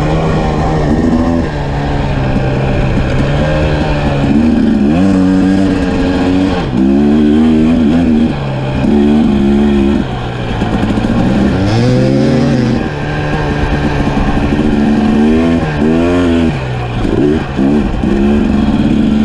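Dirt bike engine under hard riding, its pitch climbing and falling over and over as it accelerates and backs off.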